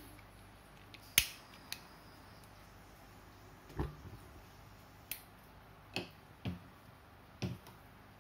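A series of separate sharp clicks and soft knocks, about seven, the loudest and sharpest about a second in, as a butane torch lighter is clicked and handled to light a Coleman M1950 gasoline stove. No steady burner hiss stands out.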